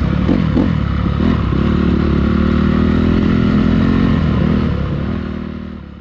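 Dirt bike engine running at low speed, heard from on board, with a brief change in pitch about half a second in. It fades out near the end.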